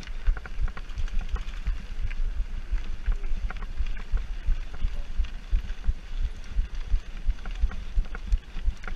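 Mountain bike rolling fast over a loose dirt and gravel track: an uneven low rumble of wind buffeting the action-camera microphone, with tyres crunching and the bike rattling in many small clicks and knocks.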